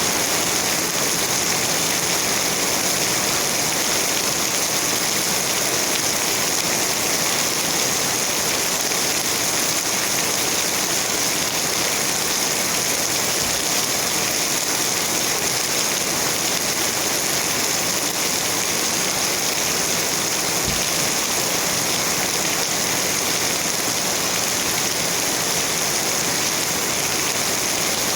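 Steady rain falling, an even hiss of many drops striking surfaces.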